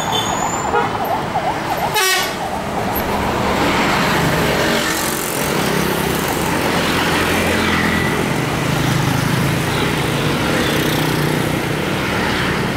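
Escort siren wailing in a rapid warble, cut off suddenly about two seconds in, followed by steady heavy-vehicle engine and road noise from the moving convoy.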